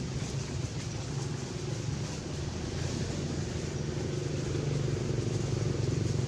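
A motor vehicle engine running steadily as a low hum, growing a little louder toward the end.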